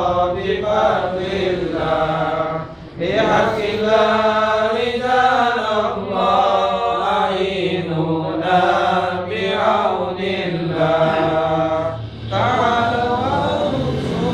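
Men's voices chanting an Islamic devotional recitation together in long melodic phrases, with short breaks for breath about three seconds in and near the end.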